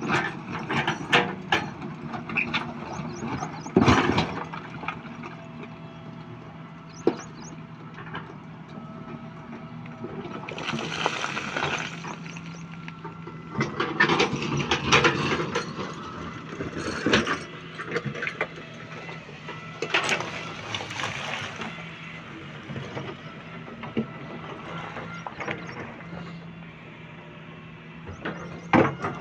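Heavy construction machinery, a crane's engine, runs steadily with a low hum, while frequent sharp knocks and clanks and several louder bursts of rattling and scraping break in over it.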